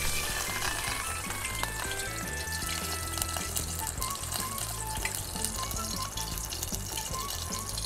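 Hot oil sizzling and crackling as small stream fish deep-fry, under background music with a stepped bass line.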